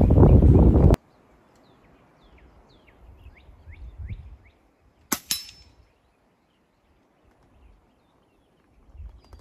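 A single shot from a suppressed .22 Aspen/Seneca PCP air rifle: a sharp crack about five seconds in, then a brief ringing tail. Small birds chirp in the background.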